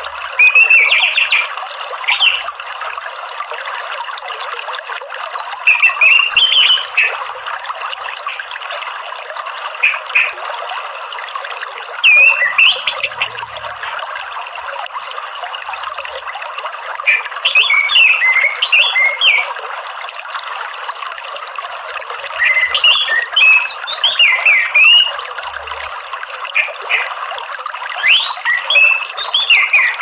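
Orange-headed thrush singing clear, quick, warbling phrases every few seconds over a steady rush of running water.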